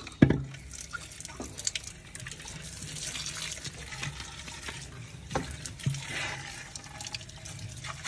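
Tap water running into an earthen clay pot (matka) as it is rinsed out by hand. A sharp knock just after the start, and two lighter knocks a little after five and six seconds in.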